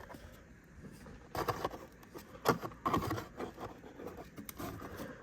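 Toy packaging being handled and pulled at to free a figure from its box: a few short scrapes and rustles, the loudest about a second and a half in and around three seconds in.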